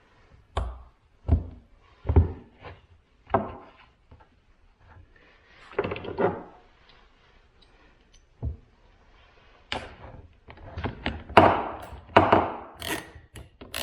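Irregular knocks and clunks from a Harbor Freight Atlas 40V cordless chainsaw being handled, with short stretches of rattling as its newly fitted chain is worked around the bar by hand to check that it runs free.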